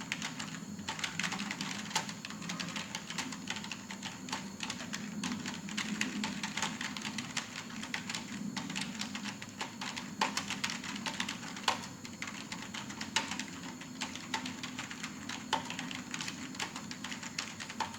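Fast, continuous typing on a computer keyboard, keys clicking in a rapid unbroken stream with a few louder key strikes.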